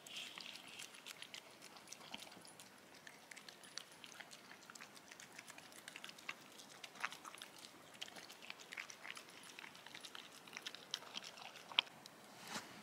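A dog eating chunks of wet food from a bowl: irregular chewing, with short clicks and smacks.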